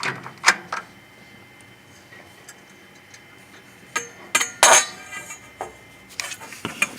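Metal hand tools clinking and knocking: short bursts of sharp metallic clicks at the start, louder ones about four to five seconds in, and more near the end.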